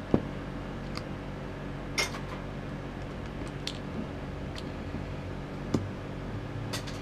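Scattered light clicks and ticks of a small screwdriver against the hard plastic casing of a cordless-tool battery as its tiny security screws are undone and the pack is handled. There is a steady low hum underneath.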